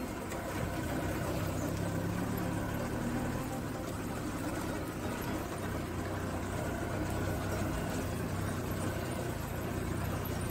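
Maruti Gypsy 4x4's engine running steadily during an off-road drive, an even low hum.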